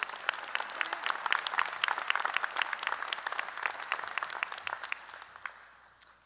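An audience applauding: many people clapping steadily, then thinning out and dying away near the end.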